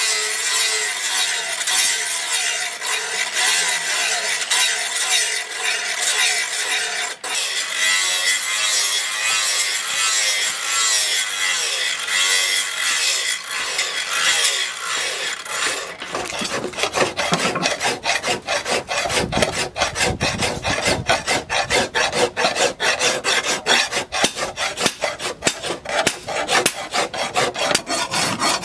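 Angle grinder with an abrasive disc grinding a leaf-spring steel billhook blade: a steady grinding hiss with a faint whine. About 16 seconds in it gives way to quick, rhythmic strokes of a hand file sharpening the blade's edge.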